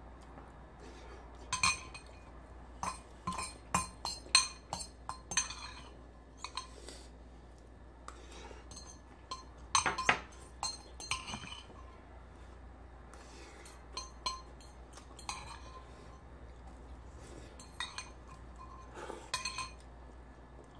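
A spoon clinking and scraping against a ceramic bowl while noodles are scooped up and eaten, in irregular clusters of quick sharp clinks, the busiest near the start and about halfway through.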